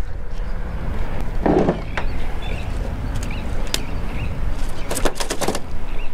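Wind rumbling steadily on the microphone, with a few sharp clicks and knocks from gear being handled in a pickup truck bed. The clicks come in a quick cluster about five seconds in.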